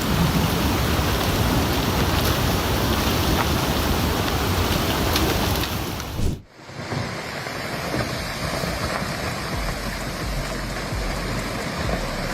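Snowmelt floodwater from an ice dam break rushing down a river channel, a steady dense roar of water. About six seconds in it cuts off abruptly and gives way to a different steady noise, with a low rumble coming in a few seconds later.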